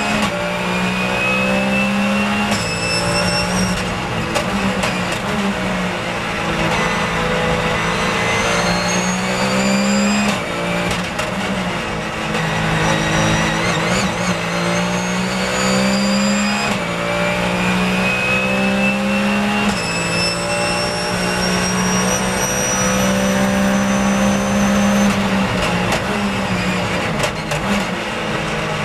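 Porsche 911 GT3 Cup race car's flat-six engine heard from inside the cockpit, pulling hard through the gears. The pitch climbs several times and drops sharply at each upshift, then falls away under braking into the corners.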